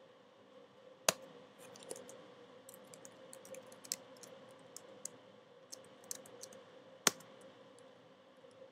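Typing on a computer keyboard: a run of light key clicks, with two louder keystrokes, one about a second in and one near the end, as the Enter key is struck to submit each line.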